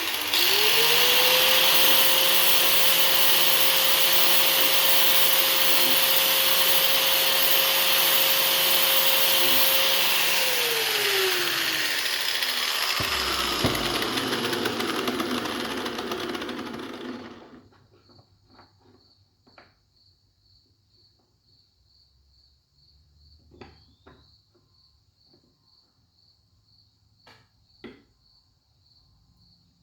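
Right angle grinder with a worn 80-grit sanding disc spinning up and sanding a screwdriver's tip, its motor pitch rising and then holding steady; it is switched off about ten seconds in and winds down, with the sanding noise trailing off a few seconds later. Afterwards faint, steady cricket chirping and a few light clicks.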